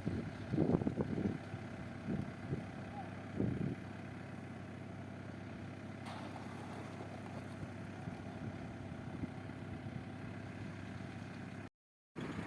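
Diesel engine of a backhoe loader running steadily, a low even drone.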